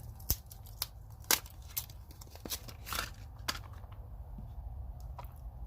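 A carbide burr set's small plastic case and packaging being handled: a string of sharp clicks with light crinkling, thinning out over the last couple of seconds.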